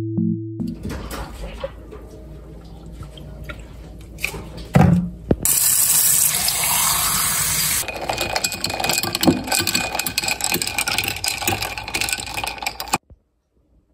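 Running water, as from a tap into a sink, starting about halfway through, followed by splashing and small knocks of handling, cut off suddenly near the end. A low thump comes a little before the water starts.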